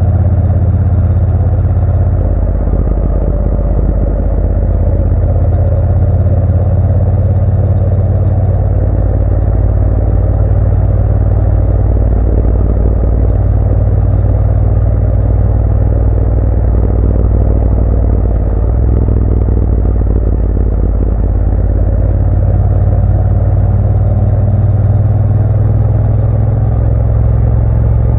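Motorcycle engine running steadily while riding, heard from on the bike, its low note shifting in pitch a few times as speed and throttle change.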